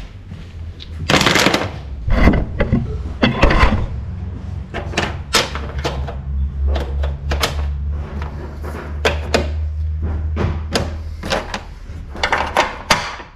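Repeated clicks and knocks of hardtop canopy parts being handled and fitted, over a low steady hum that lasts through most of the middle.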